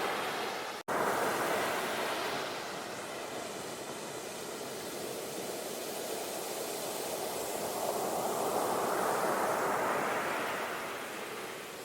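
Ocean waves washing ashore in a steady surf hiss that swells twice, just after the start and again about eight to ten seconds in. The sound cuts out to silence for an instant just under a second in.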